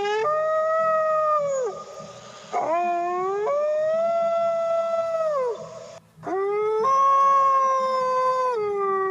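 A wolf howling: three long howls, the first already under way, each gliding up at the start, held steady, then falling away at the end, with short gaps between.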